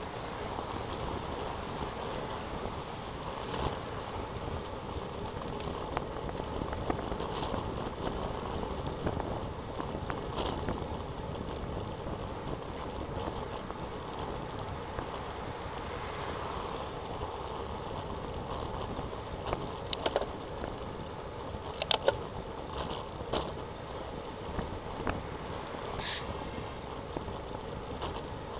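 Steady wind and rolling road noise picked up by a camera mounted on a bicycle riding on a paved road, with scattered sharp clicks and knocks from bumps. The loudest clicks come about two-thirds of the way in.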